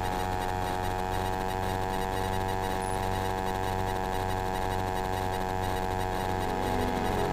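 Kitfox bush plane's Rotax engine and propeller at full takeoff power: a steady, even drone.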